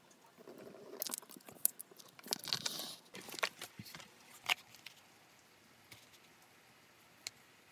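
Paper and card sheets being handled and slid over a cutting mat: rustling and crinkling with several sharp clicks and taps. The handling dies away about five seconds in, leaving one small tick near the end.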